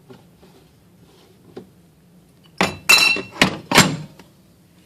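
Glass bottles knocking and clinking together as drinks are handled in a minibar fridge: a faint click, then a quick run of four or five sharp knocks with a short glassy ring.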